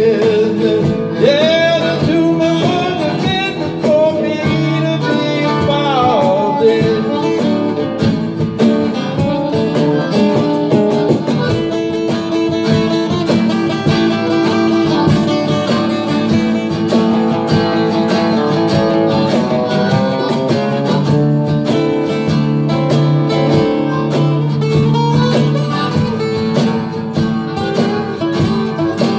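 Live band playing rock and roll, with electric guitar up front. Notes bend up and down in the first several seconds.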